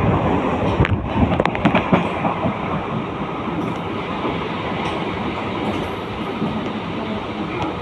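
Mumbai local suburban electric train running on the track: a steady rumble and rattle of wheels on rail, with a few sharp clicks in the first couple of seconds.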